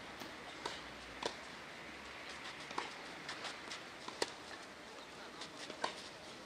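Tennis rally on a clay court: sharp racket-on-ball hits about every second and a half, with fainter ticks of the ball bouncing between them.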